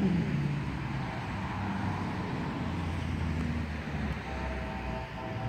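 A low, steady rumble of traffic and an approaching train, with a vehicle passing at the start, its pitch dropping as it goes by. About four seconds in, the distant horn of the Amtrak Auto Train's locomotive begins to sound: a steady chord of several notes.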